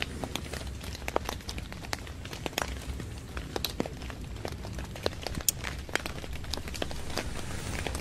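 Raindrops tapping irregularly on the tent fabric, a few sharp ticks a second over a steady low rumble.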